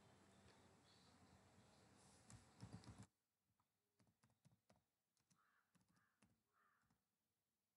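Near silence: a faint hiss that cuts off abruptly about three seconds in, then faint, scattered clicks of typing on a computer keyboard.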